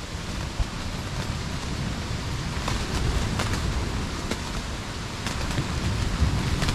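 Strong wind and rain battering a tent, heard from inside: a steady low rumble of gusting wind with many sharp taps of rain and flapping fabric, building somewhat near the end.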